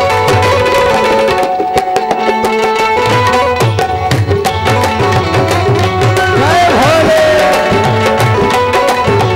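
Devotional kirtan music: tabla playing a steady rhythm under sustained held chords, with hand claps keeping time. A short sliding tone rises and falls about seven seconds in.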